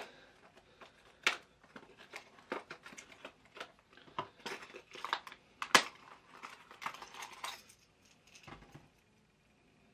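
Plastic lure packaging being handled and opened by hand: crinkling and rustling with scattered clicks, two sharp snaps about a second in and about six seconds in, dying away after about eight seconds.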